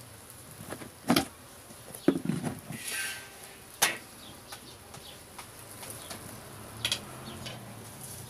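A few sharp knocks, about four, of a thin wooden rolling pin and hands on a round wooden board as sheets of dough are rolled out and handled, with a short rustle about three seconds in.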